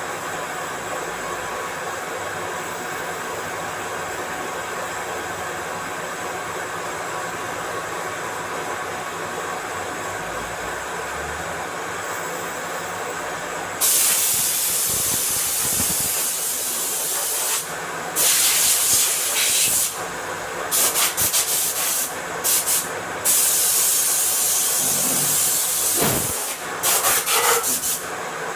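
Steady hum of a running machine, then from about halfway, repeated loud bursts of hissing, some long and some short and quick in succession.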